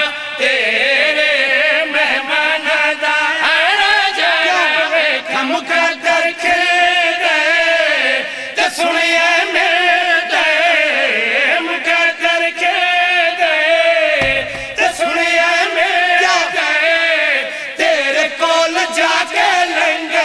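Several men chanting a Punjabi devotional verse together in long, wavering melodic lines at a microphone: a zakir's sung recitation, with the men around him joining in.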